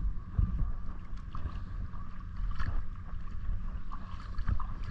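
Footsteps wading through shallow seawater, with irregular splashes, over a steady low rumble of wind on the microphone.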